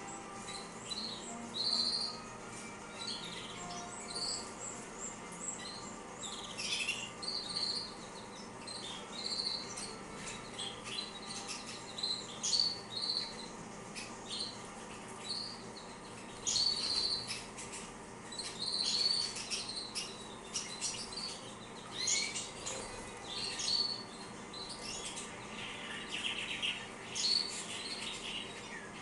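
Female canaries (Red Factor, Gloster and Yellow Mosaic) chirping and calling in short, high, repeated notes, with a few brief noisier bursts among them.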